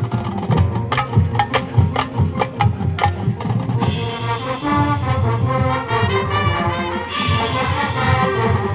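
High school marching band playing live: the drumline's rapid strokes, then brass chords come in about four seconds in and build.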